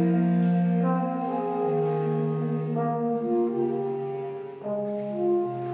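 Soprano saxophone, bass clarinet and trombone playing slow sustained chords together, the harmony moving to new notes about once a second.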